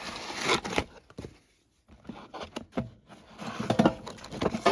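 Old shoe heels and shoemaking bits being rummaged through in a pot: scattered knocks and clatters with rustling, busier and louder near the end.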